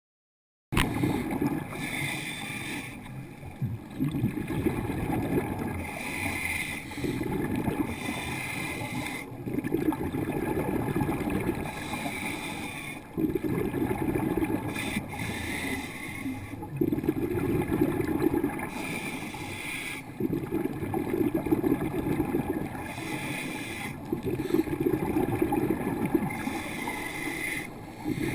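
Scuba diver's breathing heard underwater through the camera housing: the hiss of each inhale through the regulator alternating with gurgling bubble bursts on each exhale, in a slow repeating cycle. It starts suddenly about a second in.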